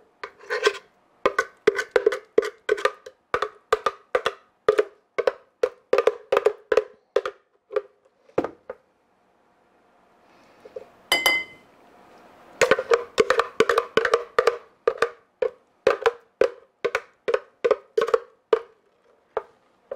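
Repeated hollow knocks, about two or three a second, as a plastic blender jar held upside down is tapped to shake thick pudding out into glasses. After a pause of a few seconds there is a single ringing clink of a spoon against a drinking glass, then the knocking starts again.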